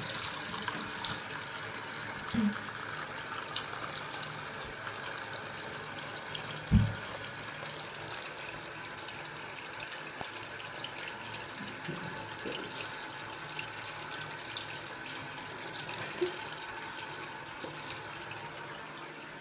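Bathroom tap running steadily into a sink, with a short dull knock about seven seconds in.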